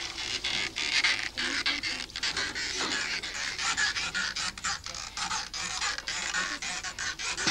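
Water splashing and clattering at a stone village well as it is hauled up by rope over a pulley, with many sharp knocks and splashes over a steady wash of noise.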